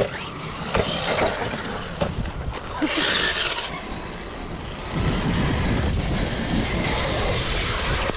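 Radio-controlled monster trucks driving over dirt and grass: motor and tyre noise with a few knocks, changing in character about halfway through.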